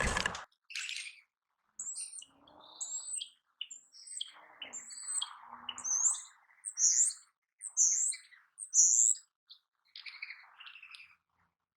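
Small birds chirping: a series of short, high chirps about one a second, loudest a little past the middle, over a faint rustling. A short burst of noise comes right at the start.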